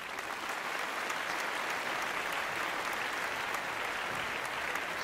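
Crowd applause, a dense steady clapping that starts and stops abruptly: an edited-in applause sound effect.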